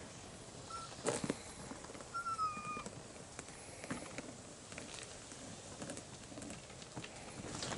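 Very young puppy moving about on a quilted blanket: faint rustling and a few soft taps, with a short high squeak that dips slightly in pitch about two seconds in.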